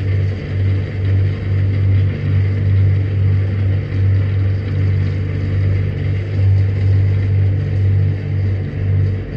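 Low, steady machine drone of a crusher: a deep hum with a few higher overtones that swells and dips unevenly about once a second.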